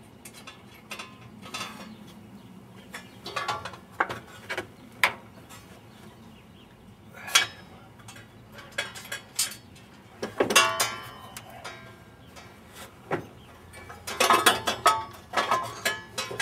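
Irregular metallic clicks and clinks of a wrench working the engine fan's bolts, some of them ringing briefly, in busier clusters about ten seconds in and near the end.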